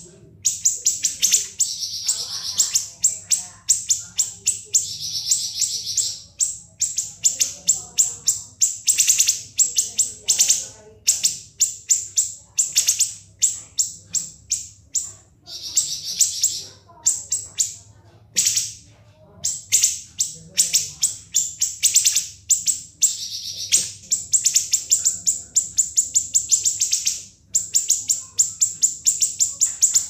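Siri-siri songbird singing a long, rapid run of sharp, high-pitched notes and fast rattling trills, broken by a few brief pauses.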